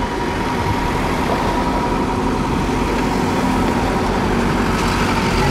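Steady low hum of vehicles on a city tram street, with a thin steady whine that fades out about halfway through.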